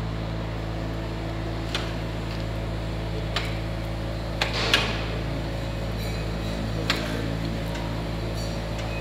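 Steady low electrical hum of workshop machinery, with a handful of short, sharp metallic clicks and taps as a boring machine's bar is brought down to a connecting rod bush. The two loudest clicks come close together about halfway through.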